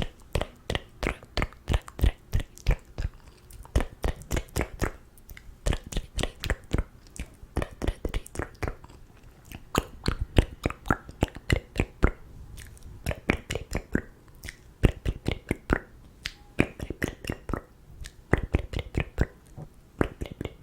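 Close-miked ASMR mouth sounds: rapid wet tongue clicks and lip smacks, several a second, with a few brief pauses.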